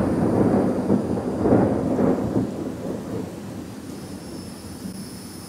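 A long roll of thunder during a thunderstorm, a deep rumble that swells again about a second and a half in and then dies away.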